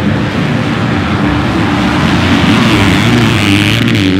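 Motocross bikes running at full throttle as a pack accelerates hard, growing louder about three seconds in as one bike passes close.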